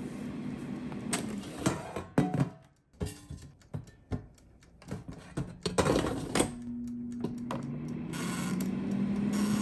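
Electric air fryer being loaded: clunks and rattles as its metal basket is pulled out, sweet potatoes are put in and the basket is pushed back, then its mechanical timer dial is turned and the fan starts a steady hum.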